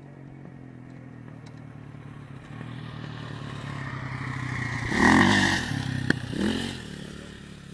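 1982 Yamaha YZ80's 80cc two-stroke single-cylinder engine running as the bike is ridden, growing steadily louder to a peak about five seconds in, then fading. There is one sharp click about a second after the peak.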